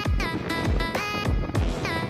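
Background music with a steady beat: a deep kick drum about twice a second under gliding melody notes.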